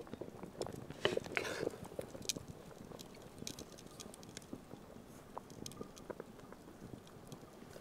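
Hot water simmering in a cast-iron Dutch oven, with irregular small pops and crackles and a short burst of louder clicks and scrapes about a second in.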